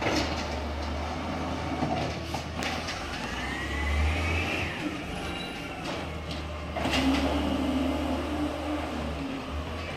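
Natural-gas engine of a Peterbilt 320 side-loader garbage truck running steadily as the truck pulls slowly forward. A rising whine comes about three to four seconds in, and there are a few clunks.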